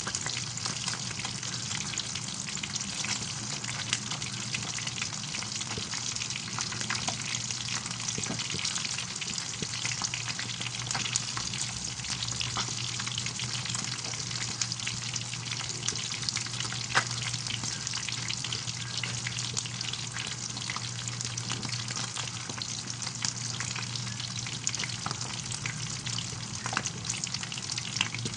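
Milkfish frying in hot oil: a steady dense sizzle full of small crackles and pops, with one louder pop a little past the middle.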